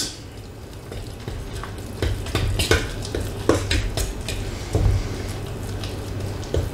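A utensil stirring thick flour batter in a metal mixing bowl, with irregular scrapes and clinks against the bowl, over a steady low hum.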